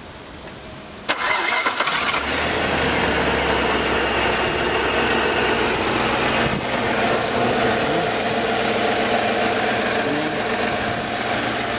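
Audi A8's 3.7 V8 engine being started: about a second in the starter cranks briefly, then the engine catches and settles into a steady idle. It is still running on petrol at this point, before the LPG conversion switches over.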